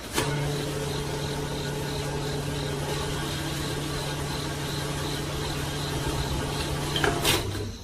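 Small electric motor of a miniature model machine running steadily with a hum and a faint regular tick about three times a second, switched on with a click at the start and off with a click near the end.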